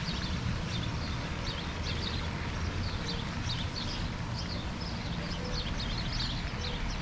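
Birds chirping, a quick run of short high calls repeating again and again, over a steady low rumble.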